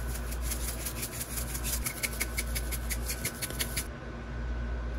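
Ground beef sizzling in hot oil in a frying pan, with a fast run of crackling ticks that stops about four seconds in, over a steady low hum.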